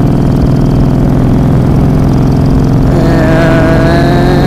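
Kawasaki cruiser motorcycle engine running at highway speed, with wind rumbling on the microphone. About three seconds in, a higher whine joins and rises slightly in pitch.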